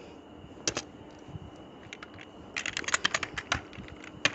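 Computer keyboard typing: a few scattered keystrokes in the first half, then a quick run of keystrokes in the second half.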